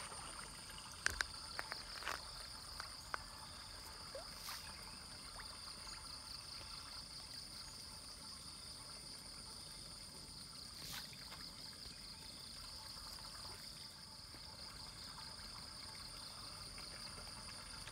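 Steady high-pitched chirring of insects, with faint water trickling and a few small clicks and splashes from fish feeding at the pond's surface.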